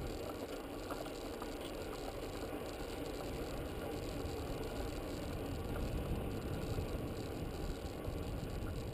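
Bicycle riding noise picked up by the bike-mounted camera: a steady rumble of tyres rolling on asphalt and wind, with occasional faint clicks.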